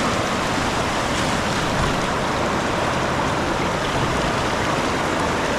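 Flowing river water rushing steadily past, an even, unbroken rush of current.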